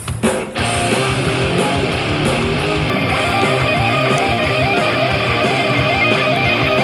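Music with strummed electric guitar, setting in fully about half a second in after a few sharp hits.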